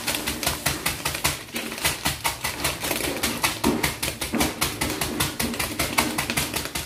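Piatos potato chips being pounded to crumbs by hand at the counter: rapid, even taps, several a second.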